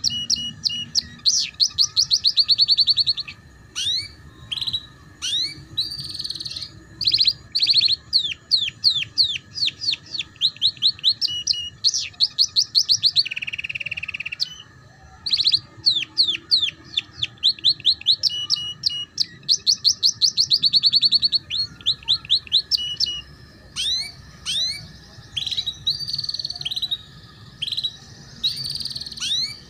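Domestic canary singing a long, loud song of fast trills: rapid runs of repeated high notes, phrase after phrase with short breaks, and a lower buzzing roll about halfway through.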